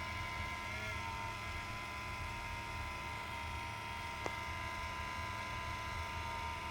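EX3000 car audio amplifier giving off a steady high whine made of several fixed tones over a low hum, the strange noise that its owner reports as a fault. A single sharp click about four seconds in.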